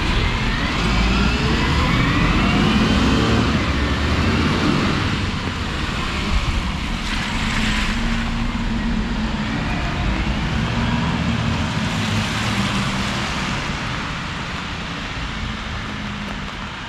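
Road traffic passing on a wet street in the rain, with engine rumble and whines that rise and fall in pitch over a couple of seconds.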